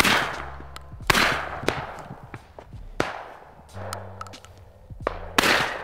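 Shotgun fired four times, at irregular gaps of one to two seconds, each blast trailing off in a long fading echo.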